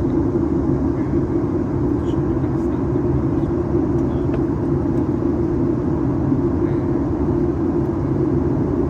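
Steady cabin noise inside a Boeing 737 MAX 8-200 airliner in flight: a constant rush of airflow with a low engine hum beneath.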